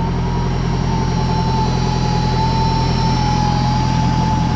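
Off-road 4x4's engine running steadily at idle, with a thin, slightly wavering whine held over it.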